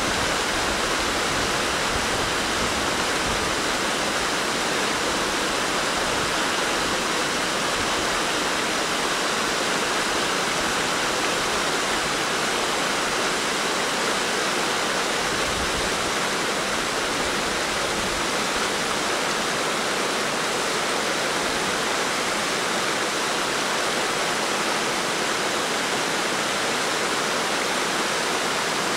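Steady rush of flowing river water, an even hiss that holds unchanged throughout.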